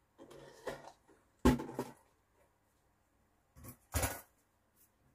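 Handling knocks and rustling from an opened mechanical weighing scale and its casing: a rustle at the start, a sharp knock about a second and a half in, and a couple more knocks near four seconds.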